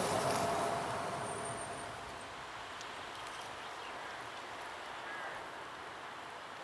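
SA133 diesel railbus's running noise fading as it moves away after passing, dying down over the first two seconds to a low steady rumble. A bird calls once about five seconds in.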